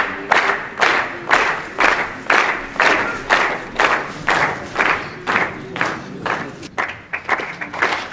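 An audience clapping in unison to a steady beat, about two claps a second; the rhythm falters briefly near the end.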